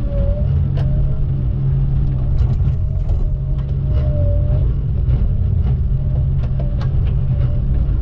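Diesel engine of a log loader running steadily with a deep drone. A thin whine wavers briefly now and then, and there are a few light clicks.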